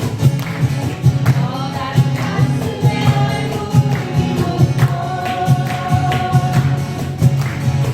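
Acoustic guitars strummed to a steady beat while several voices sing a song together.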